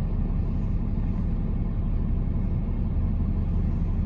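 Steady low rumble, unchanging throughout.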